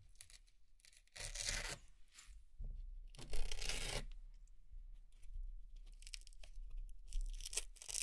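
Velcro hook-and-loop pieces being peeled off one by one: three crisp tearing rips, the middle one the loudest.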